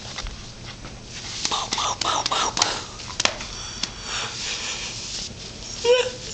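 A run of sharp clicks and taps from a baby's hands patting a laptop's keyboard and trackpad, followed near the end by a short baby vocal sound.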